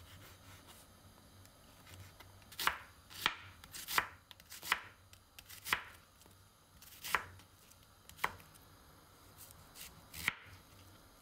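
Kitchen knife slicing sausage and onion on a wooden cutting board: about eight separate knocks of the blade hitting the board, roughly one a second and unevenly spaced.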